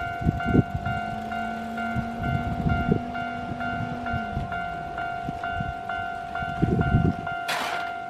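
Japanese level-crossing alarm ringing at about two strikes a second over a steady tone, with low rumbling from a Keio Line train at the crossing. A low hum drops in pitch about four seconds in, and a brief hiss comes near the end.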